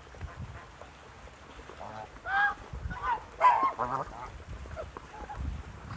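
Lion Head geese honking: a few calls between about two and four seconds in, the loudest near the middle.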